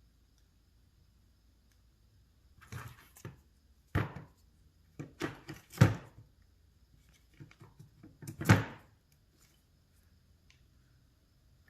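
A string of separate knocks and thunks from hydraulic cylinder parts and tools being handled and tapped during seal reassembly. The loudest two come in the second half.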